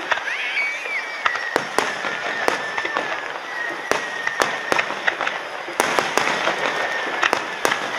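Fireworks display: aerial shells bursting overhead in an irregular run of sharp bangs, about two a second.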